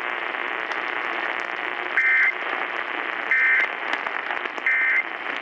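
Emergency Alert System end-of-message signal: three short bursts of two-tone digital data, evenly spaced about a second and a half apart, over steady radio static hiss. The signal marks the close of the alert broadcast.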